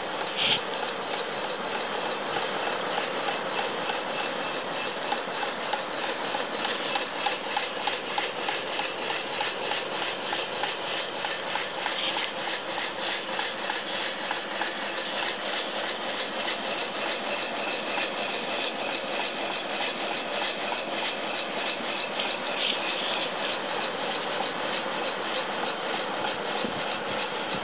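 Antique Stirling hot-air engine fan running steadily, its engine making a fast, even mechanical ticking as the blades spin.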